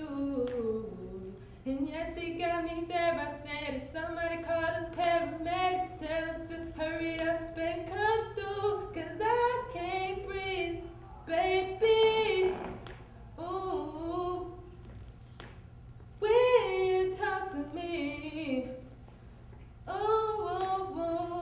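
A young woman singing a cappella, an R&B song in phrases of sliding, melismatic runs with short breaths between them.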